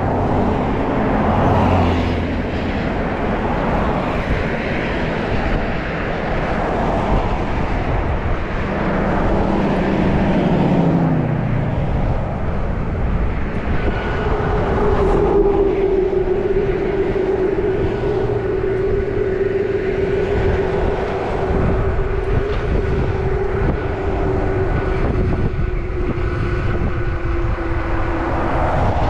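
Motor traffic passing a moving bicycle on a road, over a steady rushing noise. One vehicle's engine tone falls as it goes by about ten seconds in. A steady engine drone then holds from about fourteen seconds until near the end.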